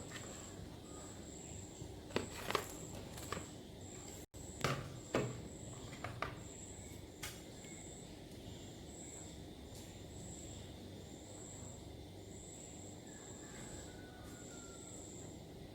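A few light clicks and knocks, like utensils touching a pan or plate, in the first half, over a faint, high, on-and-off chirring of insects that runs throughout.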